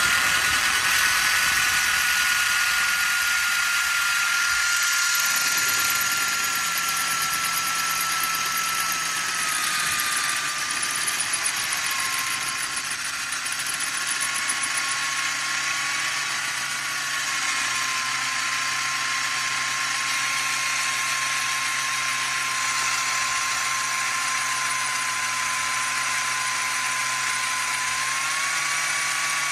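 Black & Decker electric drill running steadily, its bit grinding slowly through the bottom of a glazed ceramic flower pot under light pressure. The motor whine drops slightly in pitch over the first dozen seconds as the bit loads up, then holds steady.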